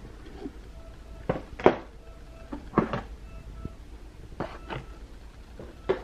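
Small plastic nail-product jars being set down and shuffled into cardboard compartments: a series of light clacks and knocks, about half a dozen in a few seconds, the loudest near the middle.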